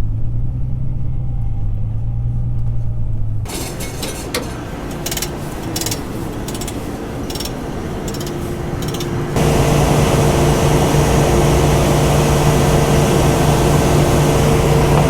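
Farm machinery engines running in three abrupt stretches: a lower steady hum, then a rougher stretch with scattered knocks and clicks from about three and a half seconds in, then from about nine seconds in a louder steady drone with a constant hum.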